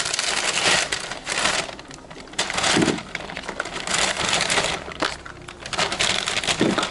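Paper shopping bag rustling and crinkling as it is opened and boxes of contact lenses are packed into it.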